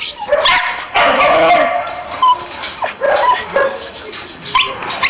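Dogs barking and yipping in a quick series of short calls.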